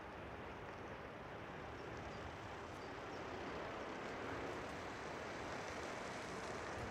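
Jet engine noise from an Airbus A380's four Rolls-Royce Trent 900 turbofans at takeoff thrust as the aircraft lifts off: a steady rushing sound that grows slightly louder from about two seconds in.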